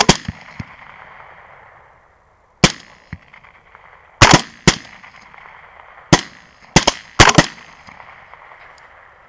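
A ragged volley of rifle fire from several hunters' semi-automatic LWRC rifles: about ten sharp shots at uneven intervals over the first seven and a half seconds, each followed by a rolling echo. The shots come in pairs and clusters where shooters fire close together.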